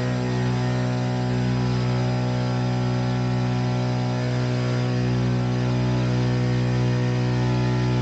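Electric push propeller of an Archaeopteryx hang glider running steadily while climbing after take-off: a constant low drone with a stack of even tones above it, over a rush of air noise.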